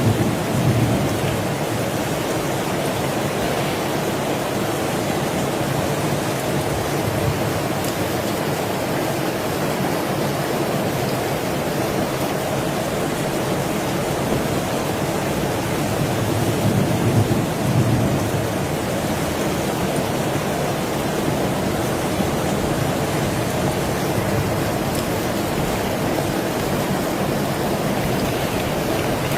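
Heavy rain falling steadily, with a brief low rumble at the very start and another about seventeen seconds in.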